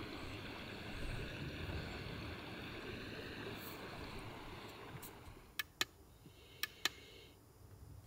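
Stream water running with a steady rushing hiss, fading down about five seconds in; then four sharp clicks in two quick pairs.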